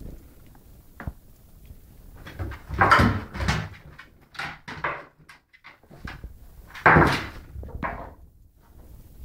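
Beagle romping in excitement over a treat: two loud scuffling, rustling bursts about three and seven seconds in, with short knocks and clicks between them.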